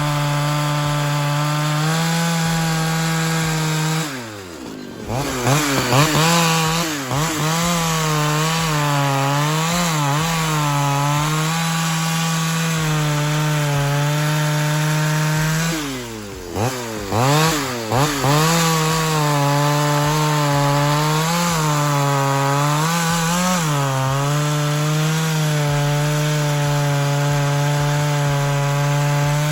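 Ported Pioneer 3270 two-stroke chainsaw running at high revs. About four seconds in, and again about sixteen seconds in, it drops sharply in pitch and level. Each time it revs back up, its pitch wavering under load for several seconds before it steadies at full speed.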